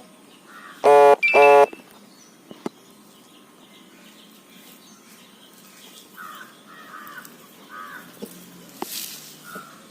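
Two loud, short bird calls about a second in, one right after the other, then faint chirping of small birds with an occasional click.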